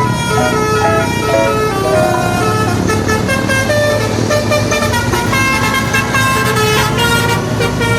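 Telolet horn on an odong-odong mini train playing a tune: a run of held notes that step up and down in pitch, several sounding together.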